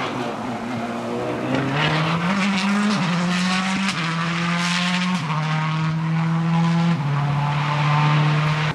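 Subaru Impreza rally car's turbocharged flat-four engine running hard at full speed. Its note holds steady, then jumps to a new pitch in steps at each gear change.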